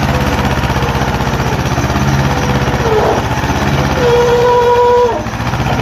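Diesel tractor engines running hard under load, a rapid even firing beat, as a Mahindra 255 DI with a loaded trolley churns through deep mud with an Eicher tractor alongside. A steady whine sits over the engine beat, breaking off about three seconds in and again just before the end.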